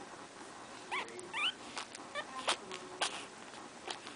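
Pekingese puppies whimpering: two short, wavering high squeaks about a second in, followed by a few short clicks.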